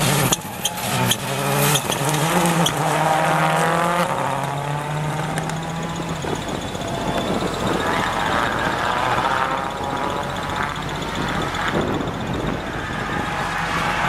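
Ford Focus RS WRC's turbocharged four-cylinder rally engine revving hard as it passes at speed. A run of sharp cracks comes in the first few seconds. The engine note then rises and falls through gear changes, with a second rally car's engine racing alongside.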